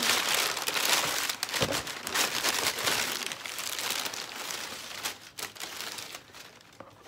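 Crinkled brown packing paper being pulled out of a shipping box and crumpled by hand, loudest in the first few seconds and fading toward the end. A dull thump about one and a half seconds in.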